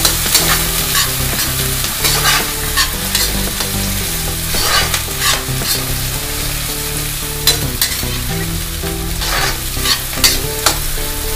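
Chopped vegetables sizzling in hot oil in an iron kadhai while a steel ladle stirs them, with frequent short scrapes and knocks of the ladle against the pan.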